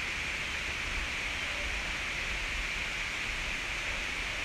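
Steady outdoor background noise: an even, unbroken hiss sitting fairly high, with a low rumble underneath.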